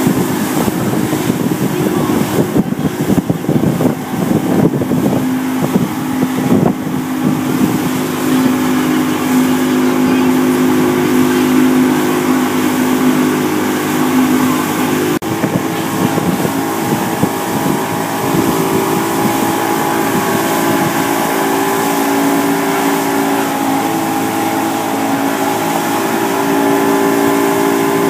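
Towboat's outboard motor running steadily at speed, with wake water rushing and wind buffeting the microphone.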